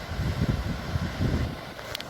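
Wind buffeting the microphone in low gusts over the steady rush of the sea, easing off about a second and a half in, with a brief click near the end.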